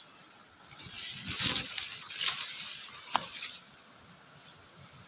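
Leaves and branches rustling and brushing as someone pushes through jungle undergrowth, with a few sharp crackles of twigs, the sharpest about three seconds in.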